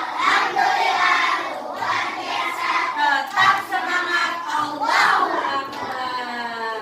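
A class of young children singing together in chorus.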